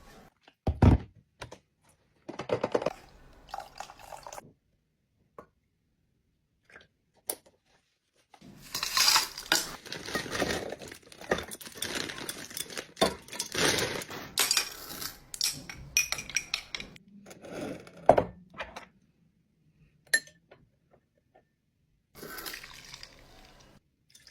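Clinking of glassware and utensils with liquid pouring as a drink is made, in scattered bursts that are busiest through the middle.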